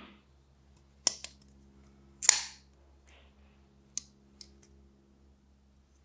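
Civivi Elementum button-lock folding knife being worked by hand: about six sharp, brief clicks from the button lock and the blade swinging through its action, the loudest one a little over two seconds in.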